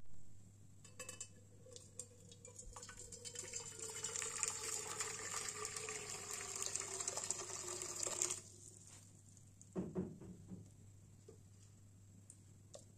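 Hot water poured in a stream into an empty metal cooking pot, splashing and filling for about seven seconds before stopping abruptly. A couple of brief knocks follow.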